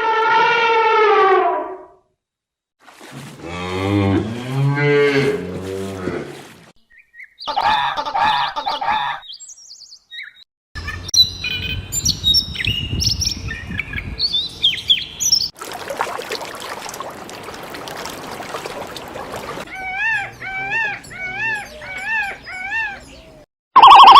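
A run of different animal calls, one clip after another: a falling call, then a low drawn-out call, then bird chirps over a hiss, and near the end a quick series of short repeated chirps.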